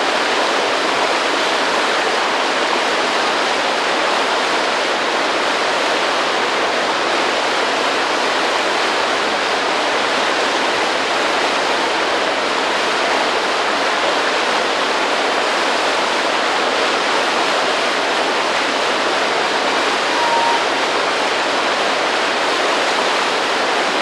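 Steady rush of a waterfall, an even unbroken roar of falling water.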